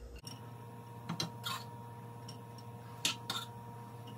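A few light clicks and taps as chopped onion pieces are dropped into a frying pan and brushed off the hands, over a faint steady hum.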